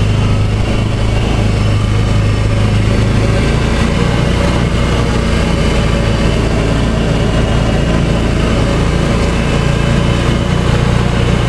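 Engine of a small off-road vehicle running at a steady, low speed as it is driven along, with a constant low hum.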